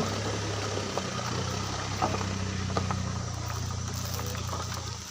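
An engine idling steadily with a low hum, cutting off suddenly near the end.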